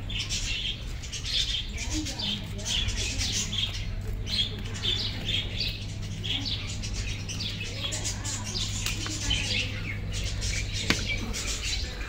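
A budgerigar colony chattering, with many short chirps and squawks overlapping without a break, over a steady low hum. There is one sharp click near the end.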